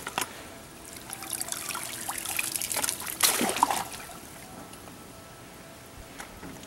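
Pool water splashing and trickling as an RC truck is lifted out of the pool, water pouring off it; loudest a little past the middle, then dying down to light dripping.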